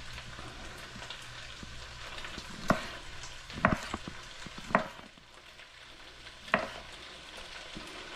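Chef's knife cutting through andouille sausage onto a wooden cutting board: four sharp knocks spread through the middle, over a steady sizzle of onions, peppers and garlic frying in a pot.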